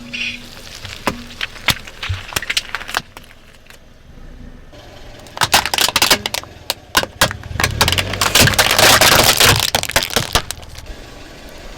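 Crunchy objects cracking and breaking under a car's tyres: scattered sharp cracks at first, then from about five seconds in a dense run of loud cracking and crunching lasting several seconds.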